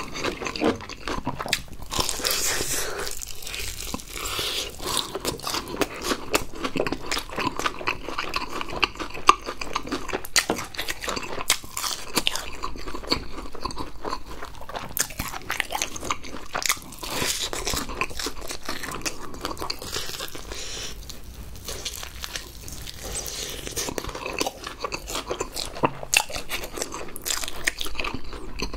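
A person biting into and chewing crispy-coated fried chicken close to the microphone: a dense run of crunches and crackles.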